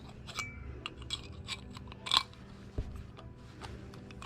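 Scattered light metallic clicks and taps as a door lock cylinder's parts are handled and fitted back together, with one sharper click a little over two seconds in.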